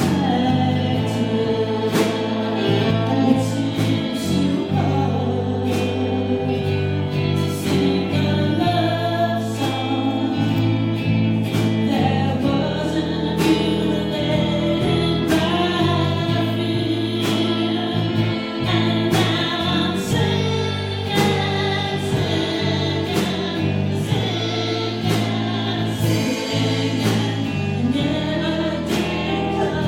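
A band playing a song with singing over steady bass notes and regular drum and cymbal hits.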